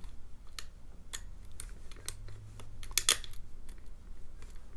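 Light, irregular clicks and scrapes of a lock pick working the pins inside a small five-pin padlock, with the sharpest click about three seconds in.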